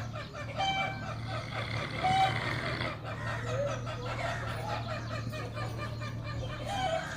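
Short, repeated bird calls, like fowl clucking, over a steady low drone that stops near the end.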